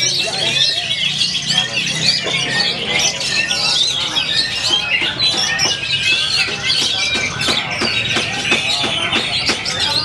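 Many caged songbirds singing over one another in a dense, continuous chorus of fast whistles and chirps, with people's voices murmuring underneath.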